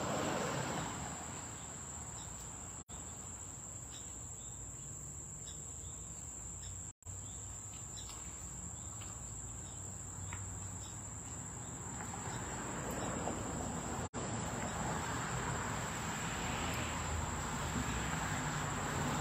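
Insects buzzing steadily at one high pitch over a low background rumble, broken by three brief dropouts.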